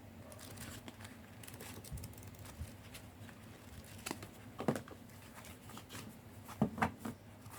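Faint rustling and light taps of a tarot deck and its card packaging being handled, with a few sharper clicks in the second half.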